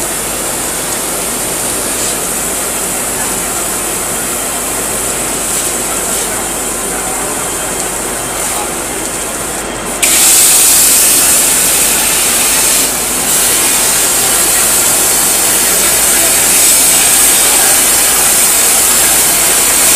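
Steady gas hiss of a CNC cutting machine's torch cutting steel plate, with workshop noise underneath. About halfway through, the hiss jumps suddenly louder and brighter.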